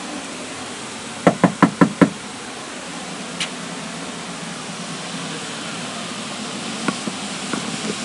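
Five quick knocks on a front door, about a second in, over a steady hiss.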